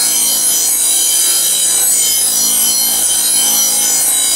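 Bench grinder wheel grinding the steel cutting edge of a commercial mower blade to sharpen it: a loud, steady, harsh high-pitched grind with no break.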